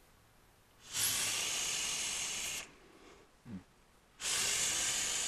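Two hissing draws, each about a second and a half, on a Jenna rebuildable dripping atomizer fired on a squonk box mod at 45 watts with a 0.78-ohm coil: air rushing through the airflow and the coil vaporizing e-liquid, each starting and stopping sharply.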